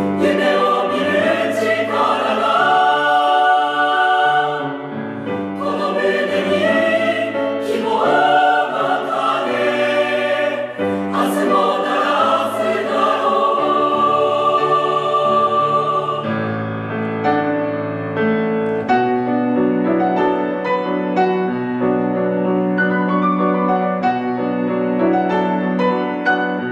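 Choral music: a choir singing sustained, swelling lines. About two-thirds of the way through it gives way to a quieter passage of steady sustained notes.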